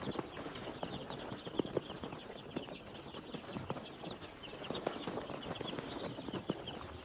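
A flock of chickens calling: many short, high peeps overlapping one another, with scattered light taps and knocks among them.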